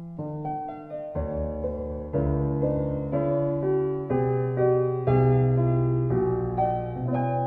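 Background piano music: a melody of single struck notes, each fading after it is played, over held low bass notes.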